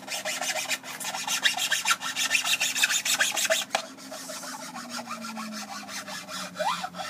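Hand tool scraping back and forth inside a drilled hole in a wooden board to enlarge the hole: a quick run of rasping strokes, heaviest for the first few seconds, then lighter.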